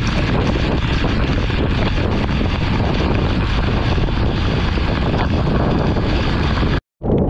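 Heavy wind buffeting on the microphone of a helmet-mounted action camera on a motorcycle riding at speed through monsoon rain, covering the bike's engine and the rain. Near the end the sound cuts out for a moment and comes back duller.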